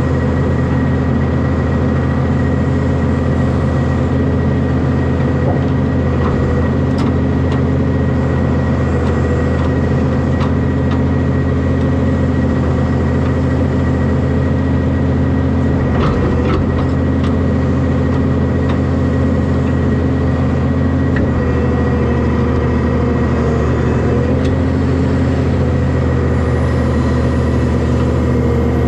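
Heavy diesel engine running at a steady speed: a constant low drone with a thin steady whine above it. A few light knocks come through, a cluster of them about halfway through.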